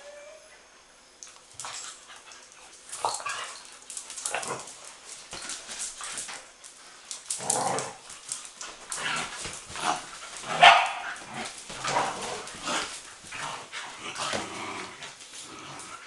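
Young dogs play-fighting, with short barks and yips in irregular bursts; the loudest comes about ten seconds in.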